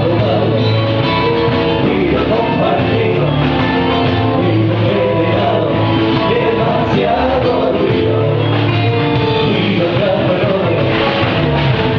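Rock band playing with a singer: loud, continuous rock music with vocals over guitar and bass.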